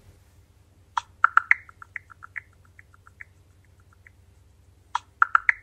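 ChatGPT smartphone app's chirping sound cue while it searches the internet: a quick cluster of short bright bleeps that trails off into sparser, fainter ones. The pattern plays twice, about four seconds apart.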